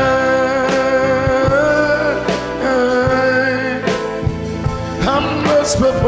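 Gospel praise-and-worship music: a man singing long, wavering held notes over an electronic keyboard, with a steady drum beat.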